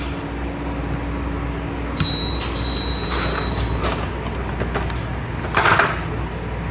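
Plastic XDA-profile keycaps being handled and pressed onto a mechanical keyboard's switches: a few light clicks, then a louder brief clatter near the end.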